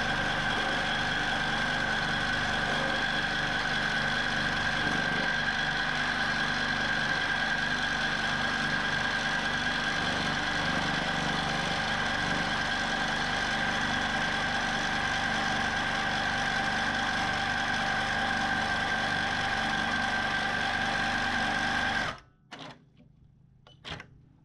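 Q'nique 19 longarm quilting machine running steadily as it stitches, with a constant whine; it stops suddenly near the end, followed by a couple of faint clicks.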